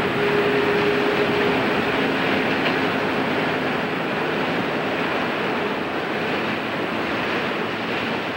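Steady outdoor rushing noise, like wind and distant surf. In the first few seconds a faint held tone is followed by a lower one.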